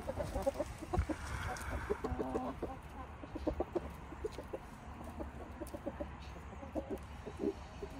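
A flock of Brahma chickens clucking while they feed: many short, soft clucks throughout, with one longer drawn-out call about two seconds in.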